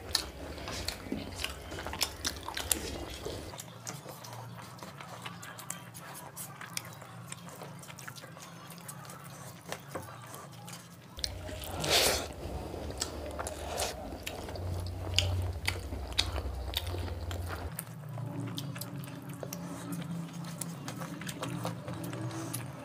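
Two people eating fried rice and chicken curry by hand: wet chewing and smacking mouth sounds with many short clicks, and a louder burst about halfway through as a handful of rice is pushed into the mouth.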